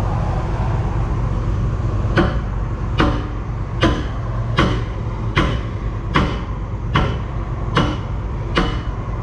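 A hammer striking steel at the excavator's boom, nine ringing metallic clangs evenly spaced a little more than one a second, starting about two seconds in. Underneath, the John Deere excavator's diesel engine idles steadily.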